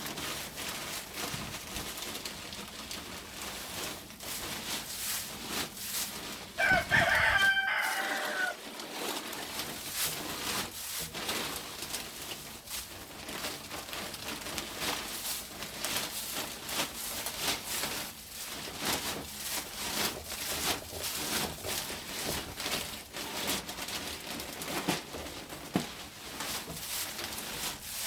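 A rooster crows once, about seven seconds in, the loudest sound here. Around it, the continual rustle and scatter of pine shavings being spread and kicked across the coop floor.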